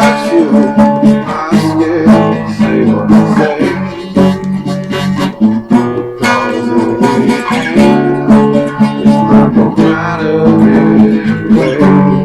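Acoustic guitar strummed in a steady rhythm, playing the instrumental break of a folk-rock song.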